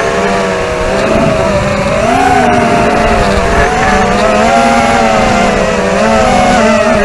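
ZMR250 racing quadcopter's DYS 2204 brushless motors spinning Dalprop tri-blade props: a steady multi-tone whine whose pitch wavers up and down as the throttle is worked.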